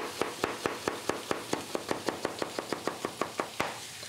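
Chef's knife slicing a carrot into rounds on a plastic cutting board: quick, even knocks of the blade on the board, about five a second, stopping near the end.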